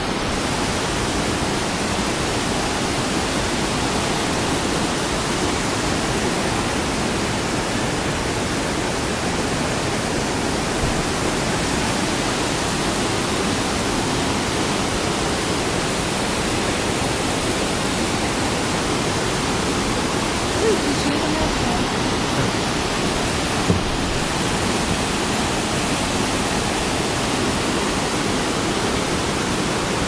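Steady rushing hiss of falling water from small forest waterfalls and a cascade pouring over boulders, with one brief click about three-quarters of the way through.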